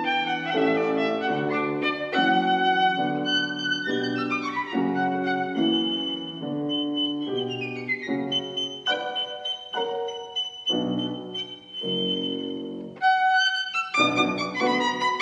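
Instrumental background music led by a violin, with some piano. In the middle the melody slides downward, then holds a long high note before the music picks up again near the end.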